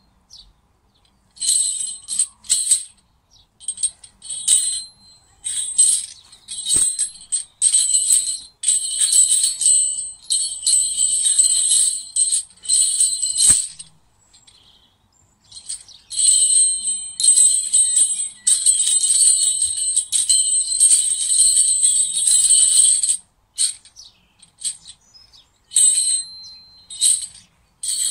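Iron training rings worn on the forearms jangling and clinking against each other in irregular bursts as the arms move through a kung fu form. There are brief quiet pauses between movements, the longest about halfway through and again shortly before the end.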